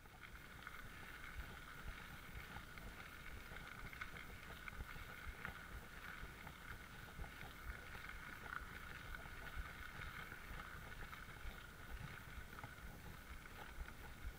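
Mountain bike rolling along a gravel park path: steady tyre and riding noise with wind on the microphone, and scattered small clicks and rattles from the bike.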